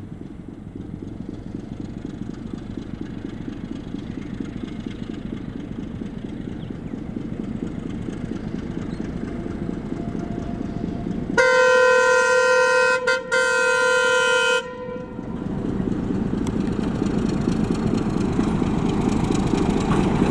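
Diesel locomotive approaching, its engine rumble growing steadily louder. About eleven seconds in it sounds its horn, a chord held for about three seconds with a brief break partway, and then the rumble carries on, louder still.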